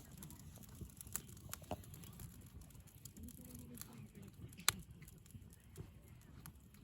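Wood campfire crackling, with scattered pops and one sharp snap about two-thirds of the way through, over a low rumble.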